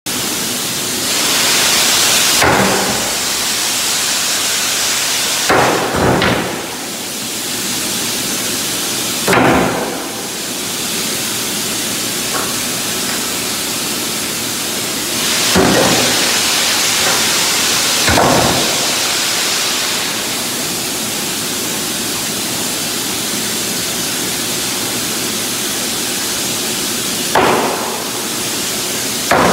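Sledgehammer blows landing one at a time at uneven intervals, roughly every two to nine seconds, two of them close together about six seconds in. A steady loud rushing shop noise runs underneath.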